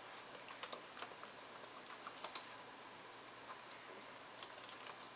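Light, irregular clicks and taps from a stylus and keys being worked at a computer pen display. There is a quick run of them in the first two and a half seconds and two more later on, over faint room hiss.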